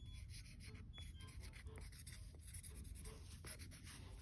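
Felt-tip marker being rubbed back and forth over a VW Type 1 Kadron intake manifold's flange face, a faint run of scratchy strokes as the face is coloured in to show its high spots; the marker is running dry.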